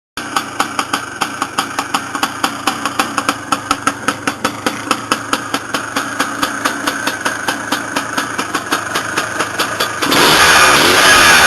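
Yamaha DT 180's two-stroke single-cylinder engine idling, with a regular popping from the exhaust at about three pops a second. Near the end, louder guitar music comes in over it.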